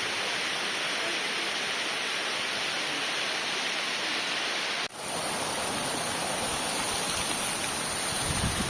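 Waterfall: a steady rush of falling water, with a momentary break about halfway through.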